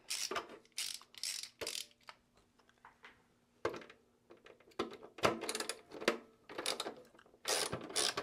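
Ratcheting screwdriver backing out the screws on the back panel of a Synology DS920+ NAS: short bursts of rapid ratchet clicks, again and again with short pauses between turns, loudest near the end.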